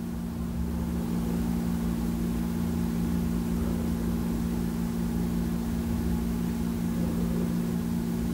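An engine running steadily at idle: a constant low hum with an even rumble beneath it.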